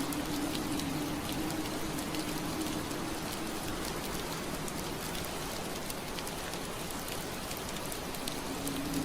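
Steady rain pattering on window glass, an even hiss dotted with small drop ticks. A low steady hum, likely the background breeze, fades out midway and returns near the end.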